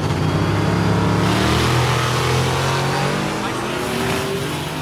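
Drag-racing cars launching at full throttle and accelerating away down the strip, their engine note climbing in pitch and slowly fading as they pull away.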